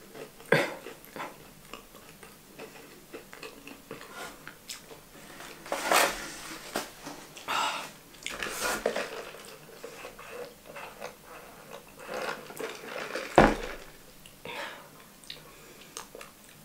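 Sounds of eating at a table: scattered light clicks and rustles of fries, plate and paper wrapper being handled, with one heavier thump on the table about thirteen seconds in.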